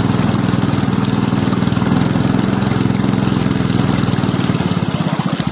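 Small boat's engine running steadily with a fast pulsing hum; near the end its lowest hum drops away.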